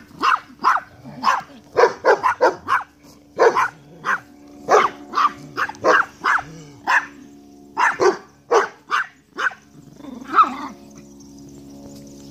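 Young podenco puppy barking over and over in short, sharp yaps, in quick clusters that stop about ten and a half seconds in.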